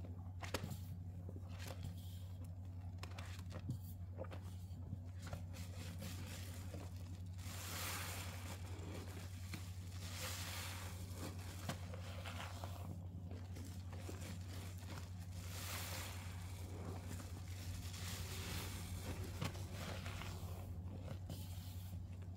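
Sponge loaded with dish soap and crumbled Ivory soap being squeezed, wet soapy squelching that swells up in several slow squeezes every few seconds from about a third of the way in, over a steady low hum.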